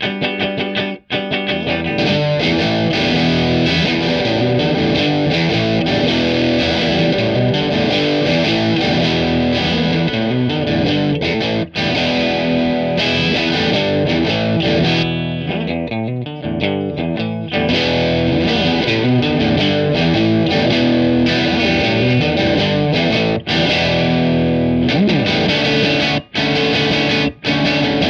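Fender Jaguar electric guitar on its bridge pickup, in E standard, playing a riff through a Small Clone–style analog chorus pedal, giving a wavering, doubled tone. About two seconds in an overdrive pedal comes in and the riff turns distorted, with a few short breaks between phrases.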